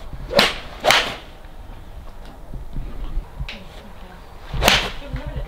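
Golf balls struck with clubs at a driving range: three sharp strikes, about half a second in, about a second in, and near the end.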